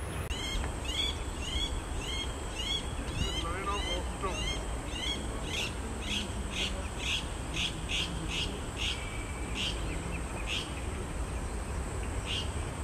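A bird calling a long series of sharp, high notes, about two a second, with a short pause near the end, over a steady low rumble.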